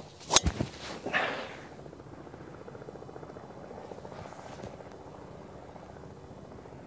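A driver striking a golf ball off the tee: one sharp, loud crack, then a short rushing noise about a second later.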